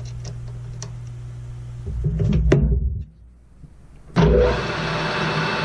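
Small metallic clicks and handling noise as a workpiece is seated in a 5C emergency collet, then about four seconds in the Grizzly metal lathe switches on suddenly and its spindle runs with a steady motor hum.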